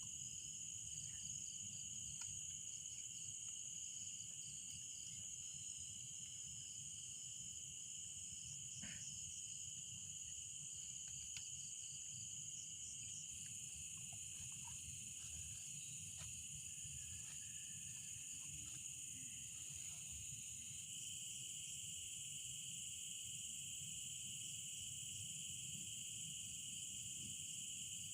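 Forest insects chirring steadily in two high, unbroken bands of sound, with a few faint clicks now and then.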